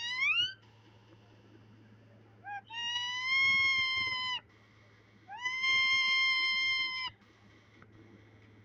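Caged pet parakeet calling in long, drawn-out pitched notes: one rising note that ends just after the start, then two steady notes of nearly two seconds each, with a short pause between them.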